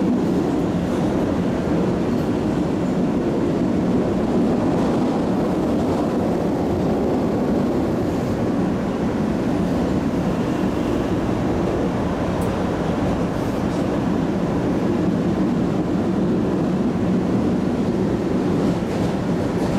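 MBTA Red Line subway car running through the tunnel, heard from inside the car: a steady, even rumble of wheels on rail that holds unchanged throughout.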